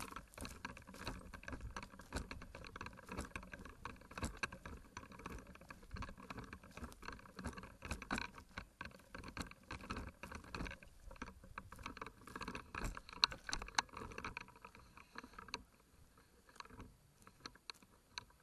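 Footsteps and the rustle of clothing, gear and undergrowth as an airsoft player moves off on foot, with many irregular small knocks and clicks. It goes quieter near the end.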